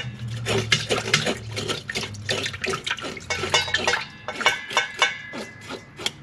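Knife scraping the scales off a white perch held under water in a stainless steel bowl: quick, repeated scraping strokes, several a second, with water sloshing in the bowl. The fish is scaled under water so the scales don't fly about.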